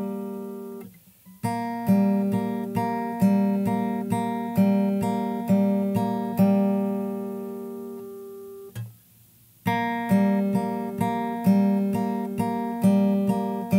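Acoustic guitar fingerpicked at a slow, even pace: a chord, then single plucked notes alternating between the third and fourth strings, each left ringing. The phrase breaks off briefly about a second in and again around nine seconds in, then starts over.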